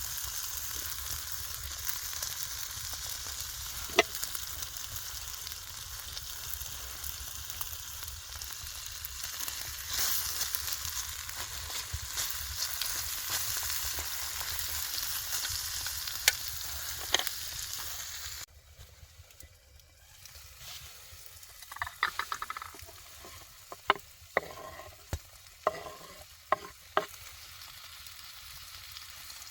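Food frying and sizzling in a pan, a steady hiss with a few sharp pops. It cuts off suddenly about two-thirds of the way through, and scattered clicks and knocks follow.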